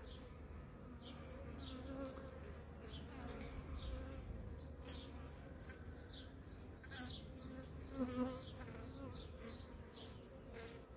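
Honeybees buzzing in a faint, steady hum, briefly louder about eight seconds in.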